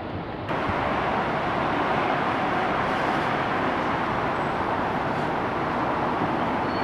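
Steady vehicle noise, a dense rushing hiss with no clear engine tone, cutting in abruptly about half a second in and cutting off just before the end.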